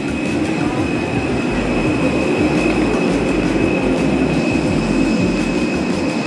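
Steady machinery drone with a high whine held on one note, the noise of a parked airliner and its gate equipment heard inside an enclosed jet bridge.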